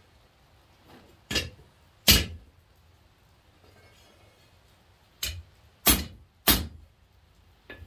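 Hand hammer striking a red-hot half-inch square mild steel bar on an anvil, each blow with a short metallic ring. Two blows come about a second and a half and two seconds in, then three more in quick succession a little over five seconds in, bending the tip of the poker's hook back over.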